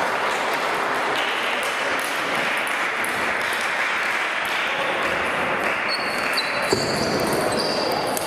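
Table tennis balls clicking off bats and tables, rallies going on at several tables at once, over the steady noise of a busy sports hall.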